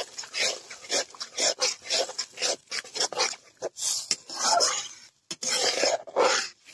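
Metal spatula scraping and stirring thick gravy in a black wok, in quick rough strokes about twice a second.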